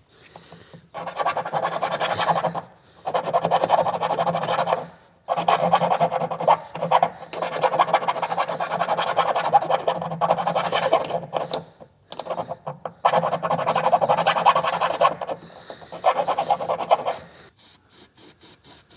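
A screwdriver scraping and rasping at thick underbody rust-proofing around a hole in the wheel-arch sheet metal. It comes in long stretches of scraping with short pauses between them.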